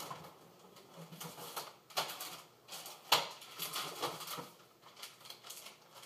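Irregular clicks, knocks and rustling of household things being handled, with one sharp knock about three seconds in.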